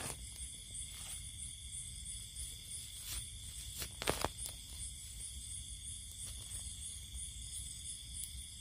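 Steady chorus of night insects, one high trill pulsing a few times a second over a continuous buzz. A few footsteps or crackles in dry leaves break through, loudest about four seconds in.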